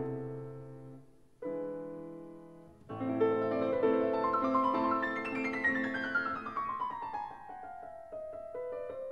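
Solo piano music: a held chord fading away, a new chord struck about a second and a half in, then a flowing passage with a long descending run of notes.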